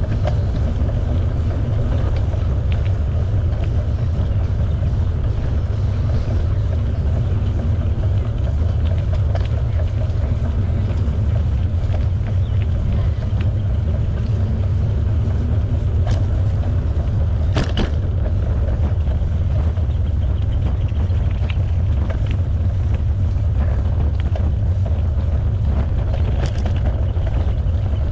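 Steady low rumble of wind on the microphone and tyre noise from a bicycle being ridden, with a few sharp clicks, the loudest a little past halfway.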